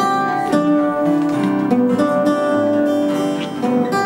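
Crafter acoustic guitar picked note by note, playing a short single-note melody in open position, the notes following one another every few tenths of a second.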